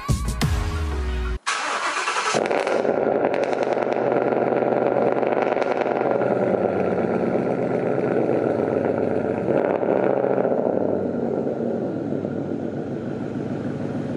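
Background music cuts off about a second and a half in. A Ford Mustang GT's 5.0-litre V8 then starts with a brief loud flare and settles into a steady low-speed run while the car reverses.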